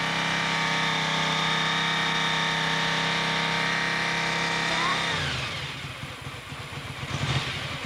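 1982 Honda 550 motorcycle engine running cold at a steady fast idle on the choke. About five seconds in the revs fall away to a slow, uneven idle, which the owner thinks needs adjusting while the engine is still cold.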